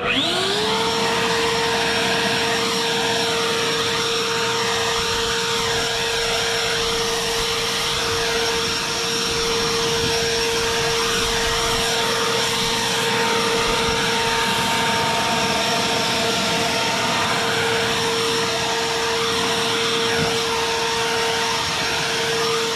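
WORX WG520 12-amp corded electric turbine leaf blower starting up, its whine climbing to pitch within the first half second, then running steadily at full speed with a constant whine over the rush of air.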